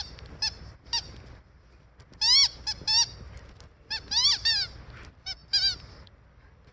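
A squeaky dog toy squeaked again and again as a husky chews it: about a dozen short high squeaks, several coming in quick groups of two or three, the loudest about two seconds in, stopping about a second before the end.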